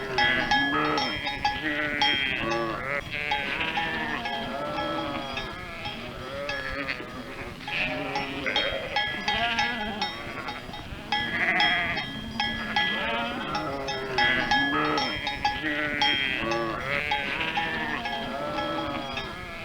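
A flock of sheep bleating, many calls overlapping one after another, with the metal bells they wear clanking and ringing throughout.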